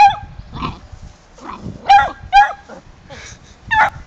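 A beagle barking at a cat in short, high-pitched yelps: about four loud ones, with quieter barks between.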